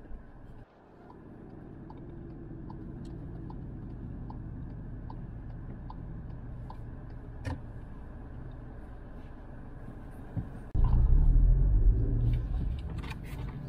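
Steady road and engine noise inside a moving car's cabin, with a turn-signal indicator ticking about every three-quarters of a second for several seconds. About eleven seconds in, a much louder low rumble sets in.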